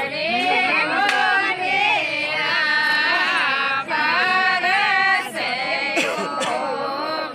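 Several women's voices singing a traditional wedding song together, with sliding pitch and long held notes and no drum beat under them.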